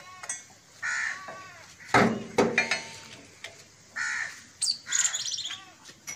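Crows cawing in short repeated calls, with two sharp, louder sounds about two seconds in and some high thin calls near five seconds in.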